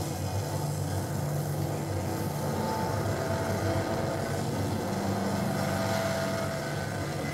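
Soundtrack of a projected presentation video played over the room's speakers: a steady low drone with a few faint held tones above it.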